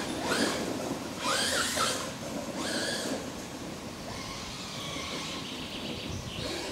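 Brushless Tenshock 501S motor of an FG Marder RC buggy on 6S whining, its pitch sweeping up and down with quick throttle bursts over the first three seconds. Hissy bursts of tyres throwing dirt come with it. After that a fainter, steadier run follows as the buggy gets farther away.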